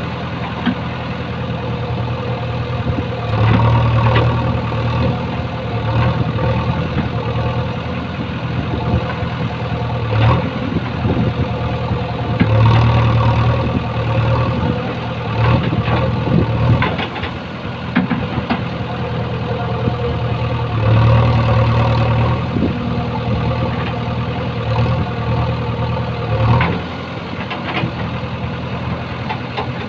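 Diesel engine of a JCB 3DX backhoe loader running steadily while it digs, swelling louder every eight or nine seconds as the backhoe arm's hydraulics take load. Short knocks and clanks come now and then through the engine noise.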